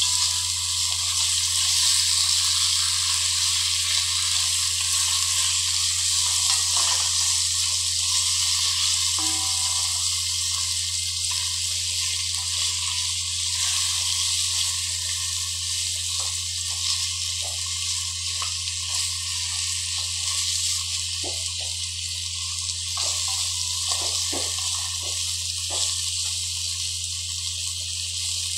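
Chicken pieces sautéing in hot oil with onion and ginger in a pan: a steady sizzling hiss, over a steady low hum. In the second half a spatula stirs the pan, giving a run of short scrapes and knocks.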